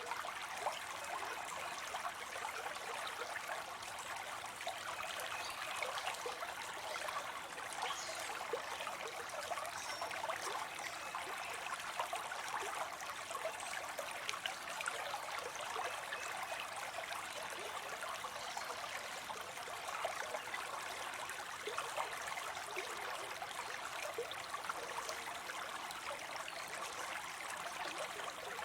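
Small fall of water spilling into a pond, a steady splashing and trickling with many small bright splashes.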